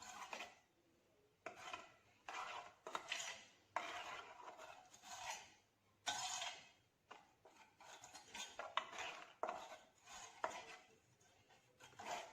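A spoon stirring a liquid buttermilk marinade in a bowl, scraping and clinking against the bowl in quick, irregular strokes.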